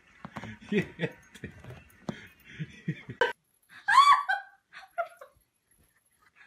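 A person laughing in short low bursts. About three seconds in there is a sharp click, then a loud short high call whose pitch rises and falls, followed by two fainter calls.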